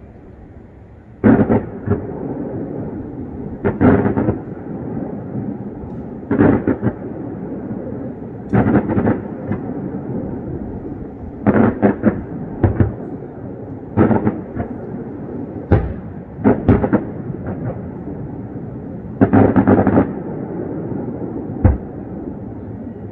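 Aerial firework shells bursting: a string of booms a few seconds apart, some coming in quick doubles and triples, each trailing off in a rumbling echo.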